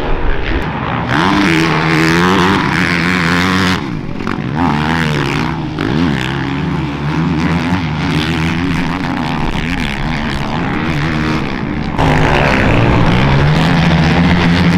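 Motocross bike engines racing on the track: two or more bikes revving hard and dropping off, their pitch rising and falling with throttle and gear changes. The level jumps suddenly about a second in and again near the end.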